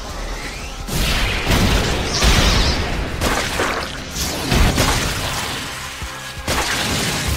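Animated fight sound effects over dramatic background music: a series of heavy, crashing punch impacts as a monster is struck and burst apart. There are about four hits, the first about a second in.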